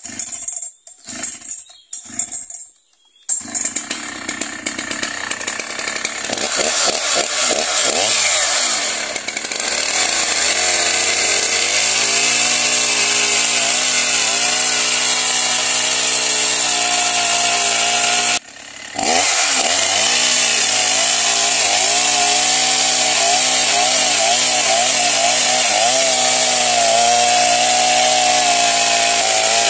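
Two-stroke chainsaw sputtering in a few short bursts before it catches about three seconds in, then revving up and running steadily at high speed while ripping a log lengthwise into a beam. The engine cuts out for a split second about two-thirds of the way through.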